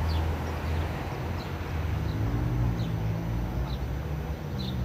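Outdoor ambience: a steady low engine rumble from a vehicle, with short high bird chirps repeating about every second.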